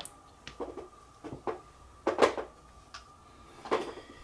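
About five light, separate clicks and knocks from hands handling the opened Logitech Squeezebox Boom internet radio's plastic case and exposed circuit board.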